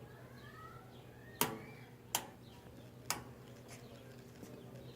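Three sharp clicks spread over about two seconds, over a steady low electrical hum, with faint bird chirps in the first second and a half.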